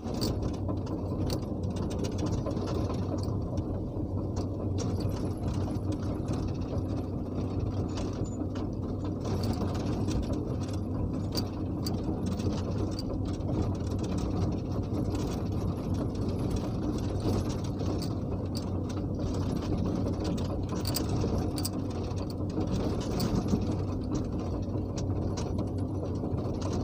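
Excavator running steadily with a low engine hum and a continual irregular clatter of clicks and rattles.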